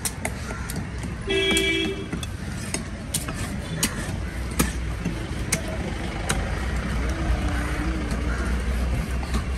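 Steady rumble of street traffic, with a vehicle horn honking once about a second and a half in. Sharp knocks of a knife striking the wooden chopping block as a tuna loin is cut, a few times through the middle.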